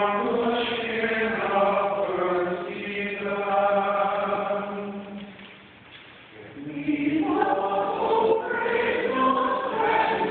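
Small church choir singing a hymn. The singing falls away for about a second in the middle, between phrases, then comes back in full.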